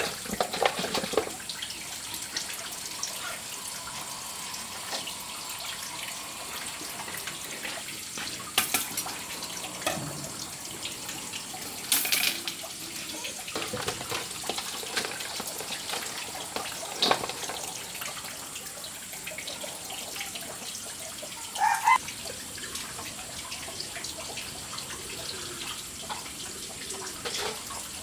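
Steady running water, with a few short sharp sounds over it, the clearest about a third and three quarters of the way through.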